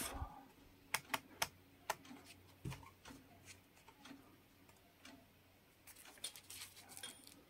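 Faint clicks of a Hioki DT4261 multimeter's rotary switch and buttons worked by a gloved hand: a few single clicks in the first three seconds, then a quick cluster of small clicks and handling rustle near the end. The meter gives no beep, its buzzer switched off.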